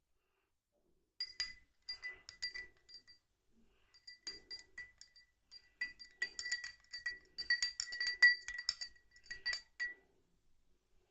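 A spoon stirring honey into thyme tea, clinking quickly and repeatedly against the glass cup with a bright ringing tone. The clinking starts about a second in, grows busier toward the middle, and stops near the end.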